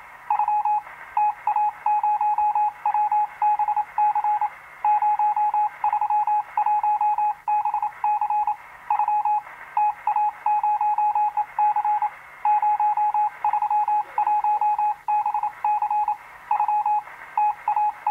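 Morse code: a single high beep keyed on and off in quick short and longer pulses, over a steady hiss of radio static.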